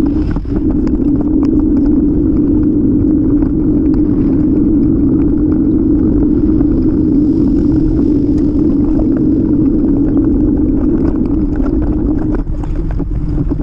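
Strong wind buffeting the microphone of a camera on a moving bicycle: a loud, steady rumble that drops a little about twelve seconds in.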